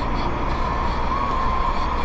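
Car driving at road speed, heard from inside the cabin through a windscreen-mounted dash cam's built-in microphone: a steady rumble of engine and tyre noise with a faint wavering whine above it.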